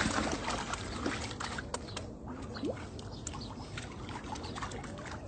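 Shallow water splashing and lapping against rocks, with many small ticks and drips.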